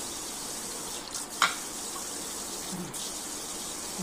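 Kitchen tap with a spray aerator running steadily, water hissing into the sink, with one sharp click about one and a half seconds in.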